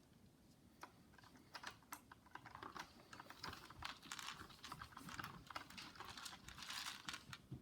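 Faint, irregular light clicking and rattling of small plastic parts and popcorn as a Lego dragline's bucket scoops popcorn, growing busier in the second half.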